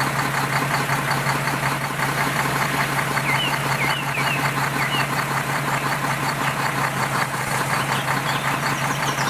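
An engine idling steadily with a fast, even beat, and a few short bird chirps over it about three to five seconds in.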